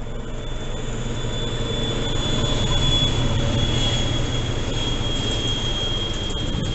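Electric train moving along the track, a low rumble with a high thin whine that slowly falls in pitch; the sound swells to its loudest about three seconds in and stays there, with a few sharp clicks near the end.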